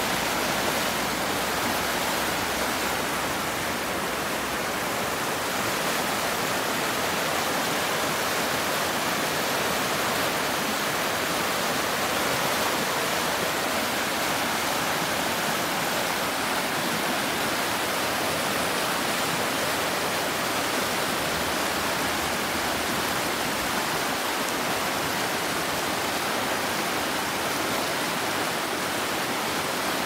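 Creek water rushing and splashing over rocks in a shallow rapid, a steady, unbroken rush.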